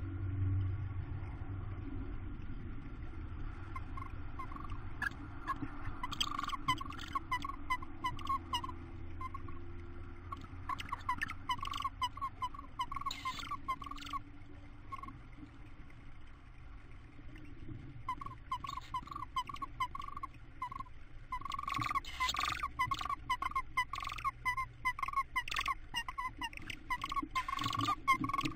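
Tawny owls in a nest box giving runs of short, soft chittering notes, several a second, over a low steady hum. Scratchy rustles from the birds moving on the wood shavings grow busier in the last few seconds.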